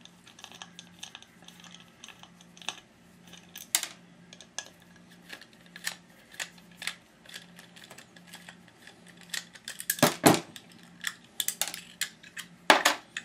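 Light metallic clicks and clinks of small hard-drive parts as the platter and its spindle clamp are worked loose by hand, with a few louder clacks around four seconds in, at about ten seconds and near the end.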